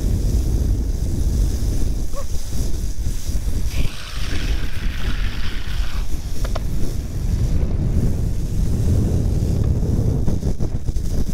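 Wind rushing over the microphone and the rolling of longboard wheels on wet asphalt at downhill speed. About four seconds in, a hiss lasting roughly two seconds as the skater crouches with a hand on the road and slides the board through a corner.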